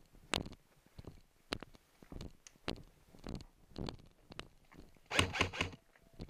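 Footsteps crunching on dry dirt and straw at a steady walking pace, about one step every half second or so. About five seconds in comes a louder quick cluster of scuffs and clatter.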